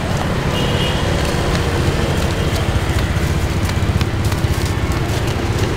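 Steady low rumble of road traffic and vehicle engines, with scattered light clicks.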